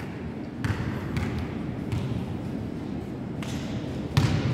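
A basketball being dribbled on a sports-hall floor: a few separate bounces at uneven spacing, the loudest near the end.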